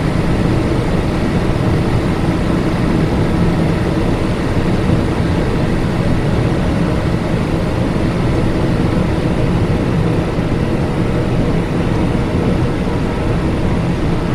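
Cockpit noise of a Cessna Citation XLS twin-turbofan business jet on final approach and landing: a steady, loud rush of airflow and engine noise with a faint engine whine.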